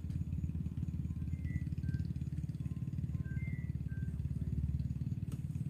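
A small engine running steadily with a fast, even chug, with a few faint short high chirps over it.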